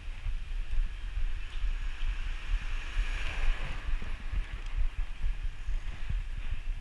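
Wind buffeting the microphone of a camera on a moving bicycle: a low, unsteady rumble, with a hiss of tyres and road noise that swells about three seconds in.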